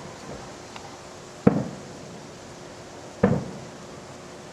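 Fireworks exploding: two sharp bangs nearly two seconds apart, each trailing off in a short rumbling echo.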